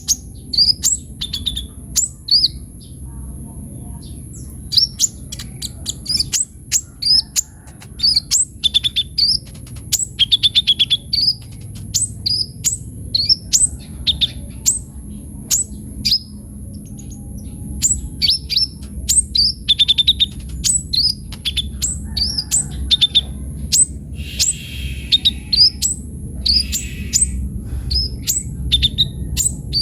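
Kolibri ninja sunbird singing continuously and energetically: a rapid run of short, sharp, high chirps and quick downward-sweeping notes, with brief trills between them.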